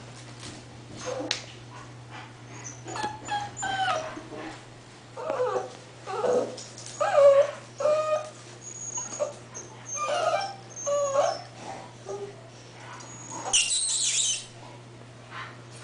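Eight-week-old English Bull Terrier puppies whimpering and yipping in a run of short, high-pitched calls that slide up and down in pitch, with a longer, higher squeal near the end.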